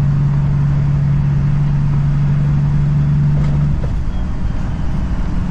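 Semi truck's diesel engine running under way, heard inside the cab as a steady low hum over road rumble; the hum falls away about three and a half seconds in, leaving an uneven rumble.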